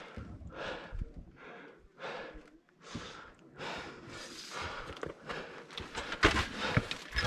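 A climber breathing hard and fast, about two short puffing breaths a second, while pulling up a steep rock slab on a fixed chain. A few sharp knocks and clicks near the end.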